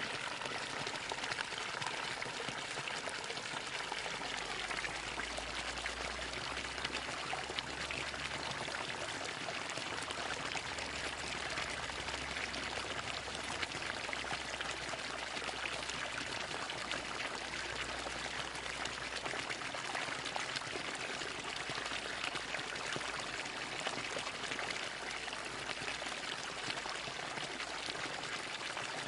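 Bamboo water fountain with water pouring in a steady stream and splashing without a break.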